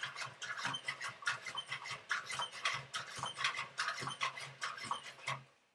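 NAO humanoid robot walking: its joint motors hum while its gears and feet click and patter in a quick rhythm, about four to five sounds a second, stopping shortly before the end.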